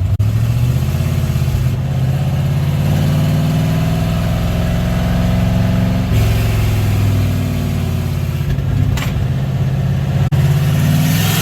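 Turbocharged car engine running hard under load during an acceleration pull, its pitch slowly climbing, with a change in pitch about halfway through, like a gear change, and a brief dip near the end.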